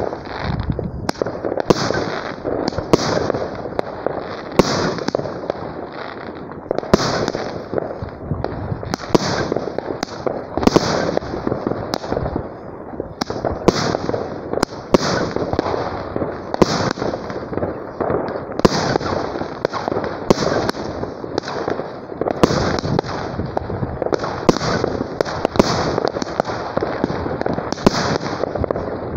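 A firework cake (multi-shot launcher battery) firing shot after shot, about one to two a second: each sharp report is followed by a short hiss as the shell rises and bursts.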